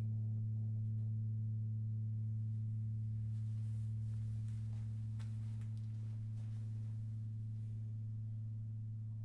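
A low, steady ringing tone with a fainter one an octave above, fading slowly: the lingering ring of a Meinl A-minor tongue drum and a Paiste Sound Creation #6 Moon gong dying away. Faint rustles and light knocks sound over it as the player gets up and moves off.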